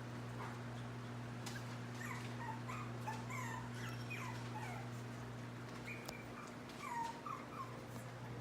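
Chihuahua puppies whimpering: a run of short, high-pitched whines, many sliding downward, with a steady low hum underneath.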